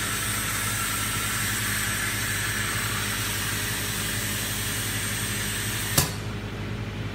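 Silk screen printing machine giving a steady hiss over a low hum, broken by one sharp click about six seconds in, after which the hiss drops away and only the hum remains.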